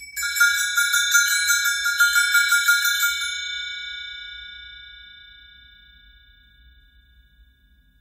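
Metal chimes shaken, jangling rapidly for about three seconds. They then stop and are left ringing, several high tones that fade slowly.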